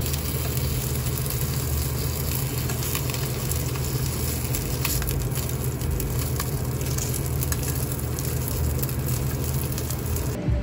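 Kimchi dumplings sizzling and crackling in oil in a nonstick frying pan, with a steady low hum from the induction cooktop underneath. Metal tongs turn the dumplings partway through, adding light clicks among the crackles.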